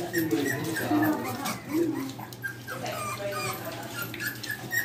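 American bully puppies, about six weeks old, whimpering and yipping in short rising and falling whines as they crowd around a feeding dish.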